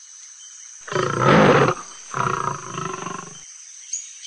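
Lion roaring twice: a long, loud roar about a second in, then a shorter, weaker roar, over a steady high-pitched jungle ambience.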